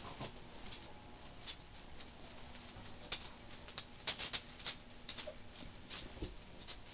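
Five-week-old puppies playing and tussling over a plush toy: scattered light clicks and scuffs from their paws and bodies on the blanket and floor, with a quick run of clicks about four seconds in.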